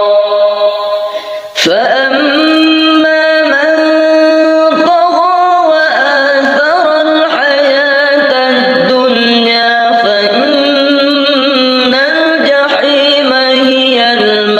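A single voice chanting the Qur'an in a melodious, drawn-out style, with long held notes that bend in pitch. A held note breaks off about a second and a half in, and the chant picks up again at once.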